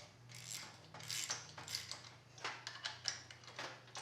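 Wrench working the nut on a door spring compressor tool, an irregular series of short metallic clicks and scrapes, as the tool lets the new door spring ease back into its seat on a 1971 Camaro door hinge.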